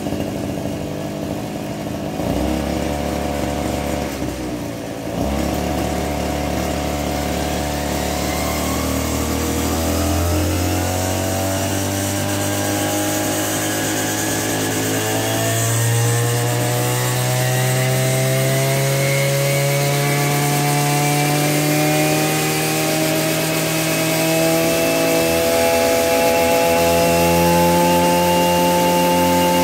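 Maruyama MB3030 backpack brush cutter's 30 cc two-stroke engine running smoothly. After a brief dip about five seconds in, its pitch climbs slowly and steadily as engine speed rises.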